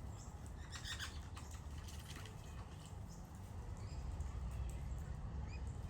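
Wild birds feeding close by: scattered soft taps and scuffles, a short cluster of them about a second in, with a few brief faint chirps over a low steady rumble.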